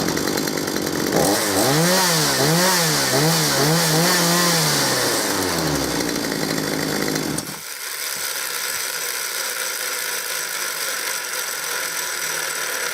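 Gardenline GLPC 41 two-stroke chainsaw running, revved up and down about five times in quick succession, then falling back to a steady idle about seven and a half seconds in. It is being run to test how much oil the chain oiler puts out.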